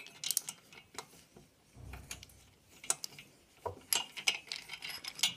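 Ratchet wrench with an 11 mm socket clicking in short, irregular bursts as it is fitted to and starts loosening the cylinder head nuts, with light metal taps of the tool on the engine.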